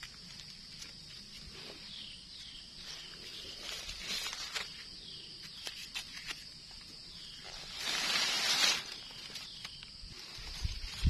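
Forest-floor ambience with a steady high insect drone and a run of short, repeated falling chirps about two seconds in. Light clicks and scrapes come from a knife trimming a mushroom stem, and a rustle lasting about a second, the loudest sound, comes near the end.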